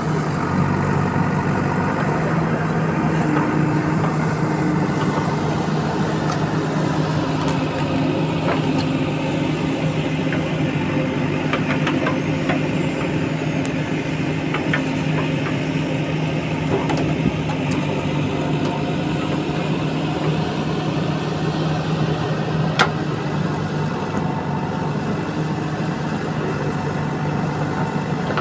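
JCB 3DX backhoe loader's diesel engine running steadily while the backhoe arm digs and lifts mud, with a few faint clicks and one sharp knock about three-quarters of the way through.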